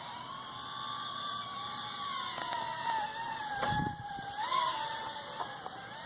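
Emax Babyhawk micro FPV quadcopter's motors whining in flight, the pitch drifting and wavering with the throttle. A brief low rumble just past the middle.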